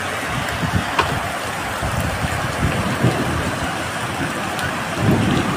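Hailstorm: hail and heavy rain falling in a steady hiss, with a single sharp tick about a second in.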